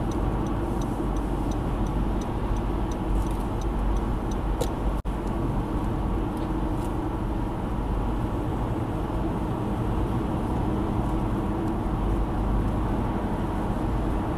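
Steady road and engine noise inside a car cruising at about 85–90 km/h on a highway. A turn signal ticks about three times a second and stops about four seconds in.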